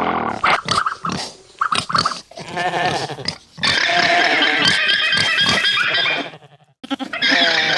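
Pig grunting and squealing: short calls in quick succession, then a denser stretch lasting a few seconds, breaking off briefly near the end.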